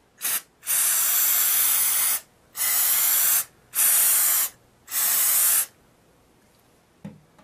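Aerosol can of rubberized undercoating spraying in bursts: a brief puff, then four longer hissing bursts of about one to one and a half seconds each with short pauses between.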